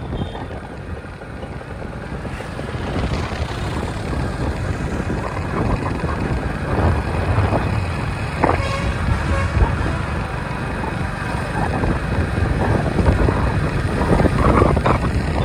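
Motorbike ride heard from on board: steady engine and road noise, growing slightly louder along the way.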